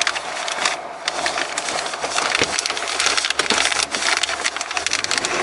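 Crinkly plastic wrapping handled at close range, a dense crackling with many small clicks. A low hum comes in near the end.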